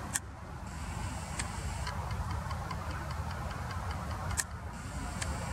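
Low, steady outdoor rumble, with a faint even ticking of about four ticks a second from about two seconds in. There are two sharp clicks, one just after the start and one just past four seconds.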